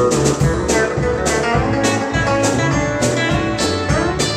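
Live country band playing an instrumental break, with guitar leading over bass and a steady drum beat.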